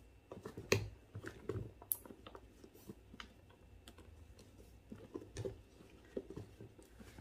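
Scattered taps, knocks and rustles of a new hiking shoe, an On Cloudrock Waterproof, being handled and pulled on, with one sharper knock about a second in.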